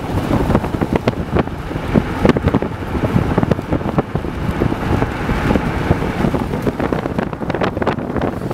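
Wind buffeting the microphone in irregular gusts over the steady road noise of a moving car.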